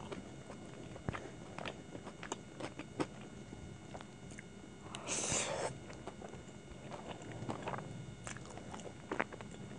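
Close-miked wet chewing and mouth clicks from eating Hakka noodles, with one loud slurp of noodles a little past halfway.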